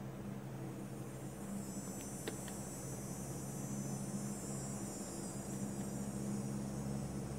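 Steady low electrical or mechanical hum with a high hiss over it that strengthens about a second and a half in, and two faint ticks about two seconds in.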